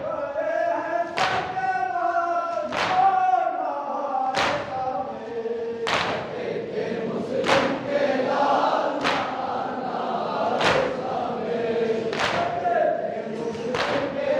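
A group of men chanting a Shia mourning lament (noha) in unison, with chest-beating (matam) in time: a sharp slap from the crowd about every one and a half seconds.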